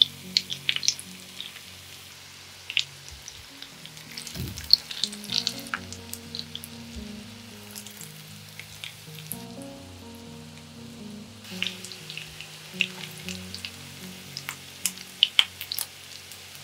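Breaded zucchini patties shallow-frying in hot oil in a pan: the oil sizzles with scattered sharp crackles and pops, thickest at the start, around four to six seconds in, and again in the last few seconds.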